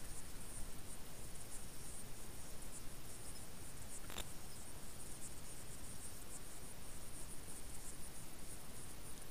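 Night insects, crickets by the sound of it, trilling steadily in a high, pulsing band. A single sharp click comes about four seconds in.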